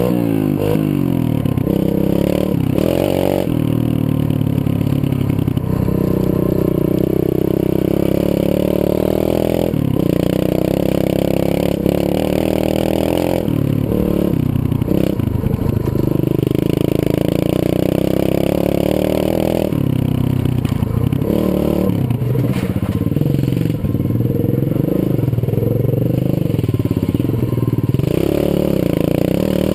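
Zongshen 125cc single-cylinder four-stroke pit bike engine being ridden, its pitch rising and falling over and over as the throttle is opened and closed, with several brief dips.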